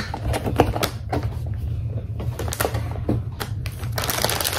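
Cardboard mochi box and plastic packaging being handled: a string of light taps and knocks, turning to plastic crinkling near the end, over a steady low hum.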